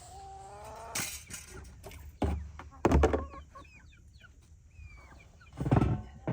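Chickens clucking with short high calls, broken by several loud thumps.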